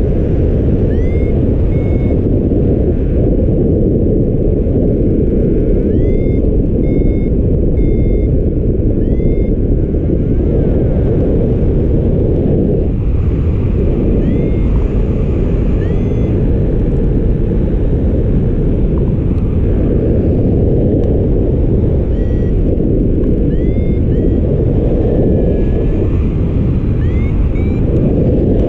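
Strong wind rushing and buffeting over the microphone, with faint short high beeps that swoop up and hold, coming in irregular clusters.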